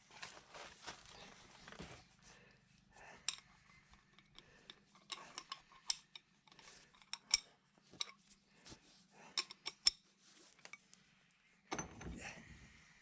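Scattered light metallic clinks and clicks of hand tools and small metal parts being handled, some with a brief ring.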